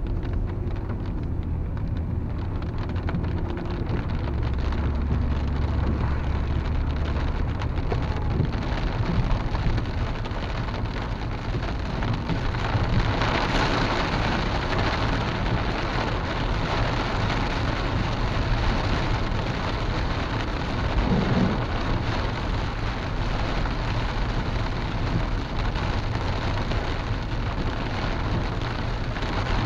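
Rain falling on a car's roof and windshield, heard from inside the moving car, with a steady low hum of engine and tyres on the wet road beneath. The rain gets louder about halfway through.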